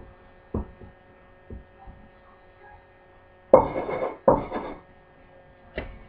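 Hands patting floured biscuit dough on a wooden cutting board, with a few soft pats. About three and a half seconds in, two louder scuffing presses follow as a drinking glass is pushed down through the dough to cut a biscuit. A steady electrical hum runs underneath.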